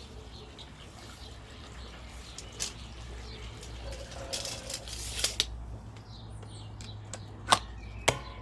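Hand tools being handled in a tool pouch: rustling and scraping in the middle, with sharp clicks, the loudest two near the end, over a steady low hum.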